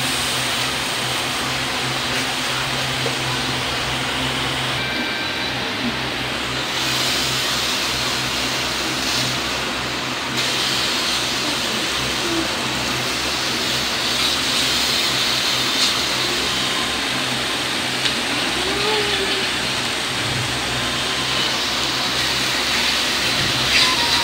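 Pork pieces sizzling on the hot grill plate of an electric griller: a steady hiss that grows louder as more meat goes down, about seven and ten seconds in. A few light clicks of chopsticks against the plate come near the end.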